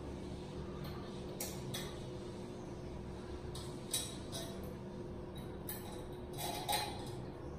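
Chrome shower mixer fittings clinking lightly as they are handled and fitted to the wall: a few scattered short metallic clicks over a steady low hum.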